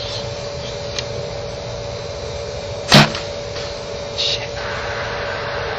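One sharp knock about halfway through, over a steady hum, followed a second later by a brief high rustle.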